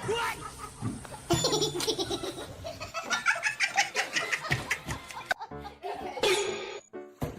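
A person laughing, with music in the background; the laughter breaks off suddenly a little past five seconds in.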